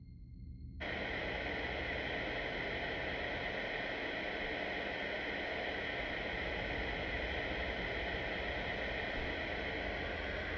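A white noise machine switched on about a second in, giving a steady, even hiss that holds level.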